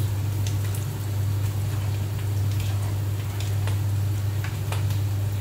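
Macaroni frying in a hot pan, sizzling with scattered small clicks as it is stirred and lifted with a utensil, over a steady low hum.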